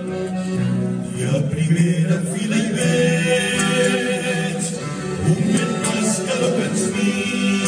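Music: a havanera sung by a group of voices in harmony, with notes held long.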